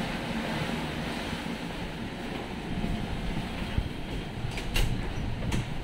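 Passenger ship ambience: a steady low rumble with wind noise on the microphone, and two sharp clicks near the end.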